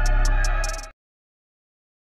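Music with drum hits and a deep held bass note, cutting off abruptly about a second in, then dead silence.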